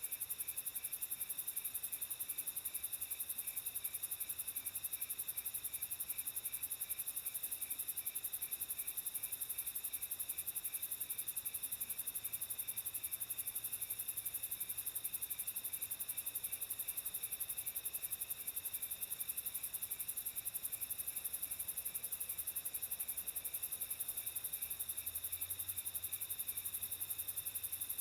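Night chorus of crickets and other insects: several steady high-pitched trills layered together, one of them pulsing in an even rhythm.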